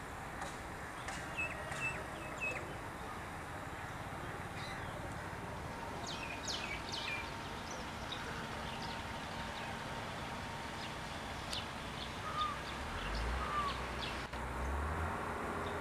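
Birds chirping now and then over a steady outdoor background hiss, with short whistled notes here and there. A low rumble comes in near the end.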